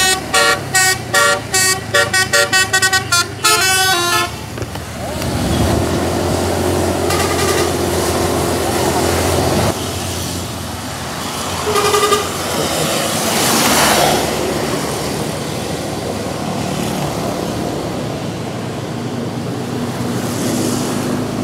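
A bus's multi-note musical telolet horn plays a fast run of short notes that speed up over about four seconds. The bus engine then runs steadily with a hiss of tyres and spray, and a loud swell of vehicle noise passes about two-thirds of the way through.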